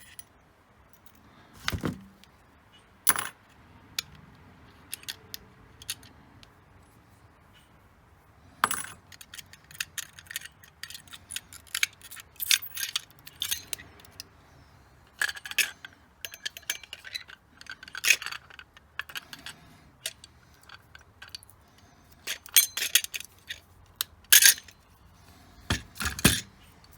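Tools and small metal hard-drive parts clinking, tapping and scraping irregularly during hand disassembly, with scattered sharp clicks and a few louder knocks.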